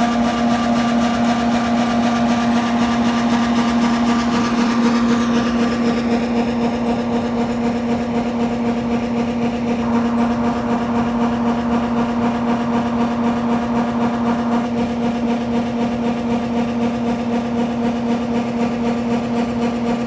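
Heavy diesel farm machinery running steadily: a constant engine drone with a high whine over it. The tone shifts a little about ten seconds in.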